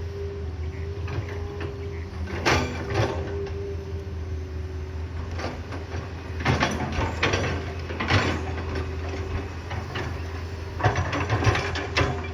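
Excavator at work: its diesel engine runs steadily under a steady whine, while the bucket and arm clank and scrape in several short loud bouts.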